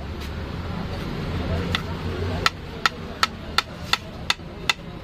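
Large kitchen knife chopping through a block of paneer and striking the hard counter beneath: a couple of scattered sharp knocks, then a regular run of them at about three a second in the second half.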